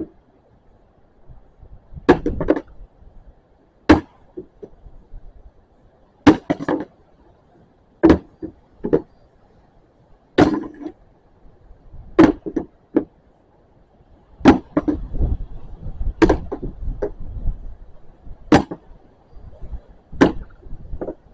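Practice swords knocking against painted round wooden shields in a sword-and-shield drill: sharp wooden knocks about every two seconds, some coming in quick pairs, around fifteen in all.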